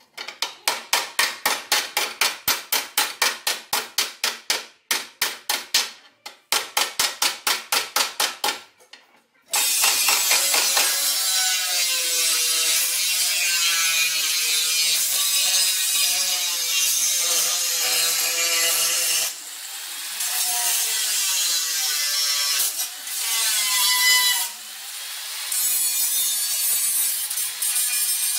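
A body hammer beating a steel car chassis rail against a dolly, a quick run of blows about five a second with two short pauses, as the front longeron is straightened. About nine seconds in an angle grinder starts up and grinds the steel, its whine wavering as it bites and eases.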